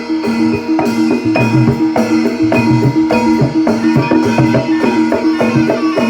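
Javanese barongan gamelan music: drum strokes over a fast, repeating pattern of struck pitched percussion.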